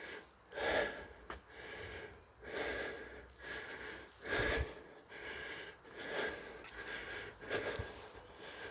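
A man breathing heavily and rhythmically close to the microphone, one loud breath roughly every second, winded from climbing stairs.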